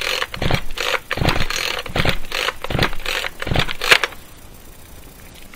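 Ryobi two-stroke chainsaw being pull-started over and over at full throttle, the recoil cord rasping out and the engine turning over without catching, until the pulls stop about four seconds in. The engine is flooded, and the wide-open throttle is meant to clear the raw fuel from the cylinder.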